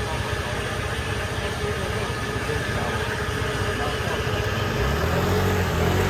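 Steady street traffic noise of scooter and car engines running and idling, with a steady hum throughout. People's voices come in near the end.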